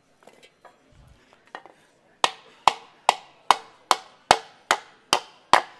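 Mallet blows on an aluminium panel being shaped by hand, starting about two seconds in as a steady run of about two and a half strikes a second, each with a short metallic ring. Before that, a few light knocks and clicks as the panel is handled and positioned.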